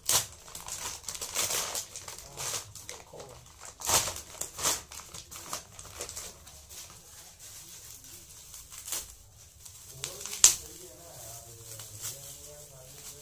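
Parcel packaging being torn open and crumpled by hand: a run of short crinkles and rips, the sharpest about ten seconds in.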